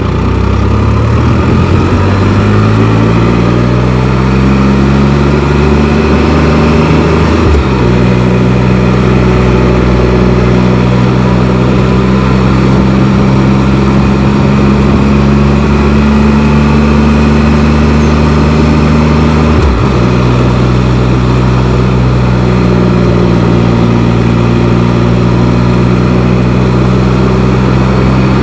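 Can-Am Spyder three-wheeled motorcycle's engine pulling away and climbing in revs. It changes up a gear about seven seconds in, drops in pitch, and runs steady until a second upshift about twenty seconds in.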